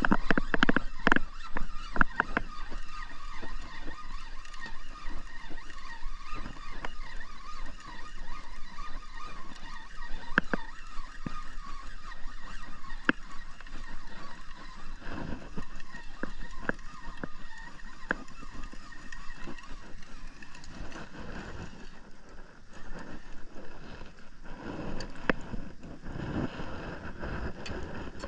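Spinning fishing reel being handled and cranked, with a quick run of clicks and knocks in the first two seconds, over a steady droning hum. Footsteps on wooden dock boards near the end.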